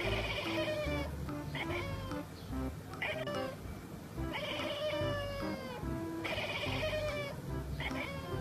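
Long-haired black-and-white cat meowing repeatedly: about six calls, some long and some short, each falling in pitch.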